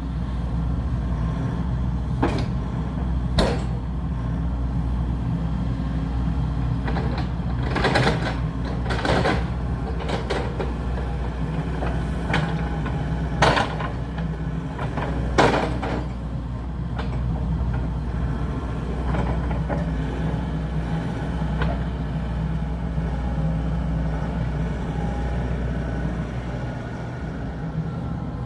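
Earthmoving machine's engine running steadily while it levels soil, with a series of sharp clanks and knocks, most of them in the first half.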